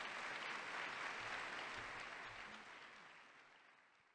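Audience applauding in a large hall, fading out near the end.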